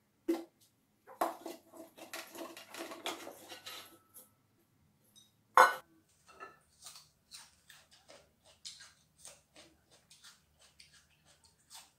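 Kitchen dishes and utensils clinking, knocking and scraping as food is handled, in scattered short clicks with one sharp clack about five and a half seconds in.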